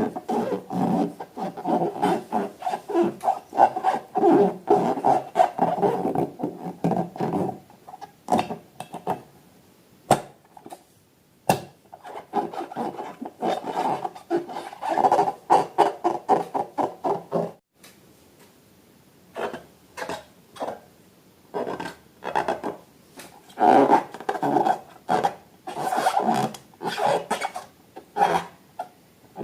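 Slime being squeezed and worked by hand: dense, irregular wet clicking and crackling, with a couple of quieter pauses partway through.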